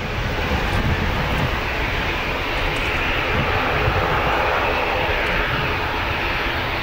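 Airbus A380's four jet engines at high thrust as the airliner rolls down the runway on departure: a steady, loud rushing noise with a low rumble beneath.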